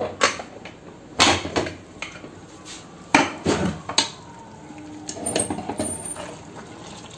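Pressure cooker lid being twisted open and lifted off, with several sharp metal clanks over the first few seconds, the cooker's pressure already released. Then a metal spoon scrapes and stirs inside the aluminium pot, more quietly.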